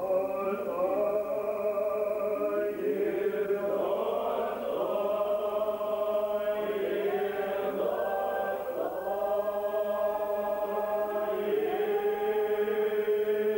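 Old Believer church choir chanting, long held notes with slow slides from one note to the next.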